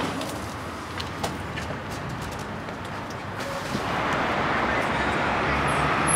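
Street traffic: outdoor city noise with a few light clicks in the first seconds, then a louder steady rush of a vehicle with a low engine hum from about four seconds in.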